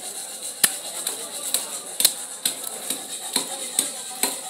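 A knife blade scraping the scales off a large rohu fish in quick repeated strokes, about two a second. Each stroke is a sharp, rattly scrape.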